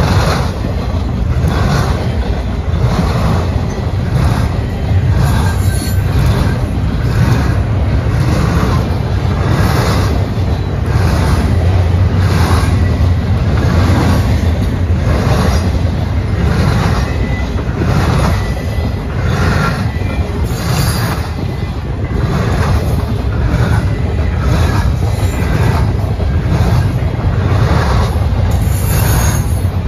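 Double-stack container train cars rolling past: a steady heavy rumble with the wheels clacking over the rails in an even rhythm.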